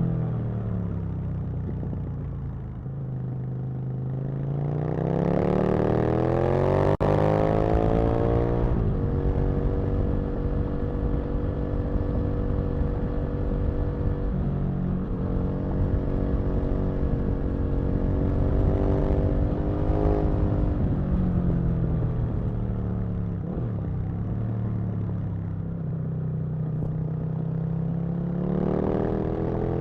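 Aprilia RSV Mille's 998 cc V-twin engine under way: the revs drop off over the first few seconds, climb again, hold fairly steady through the middle with gentle rises and falls, then drop and climb once more near the end. A single sharp click about seven seconds in.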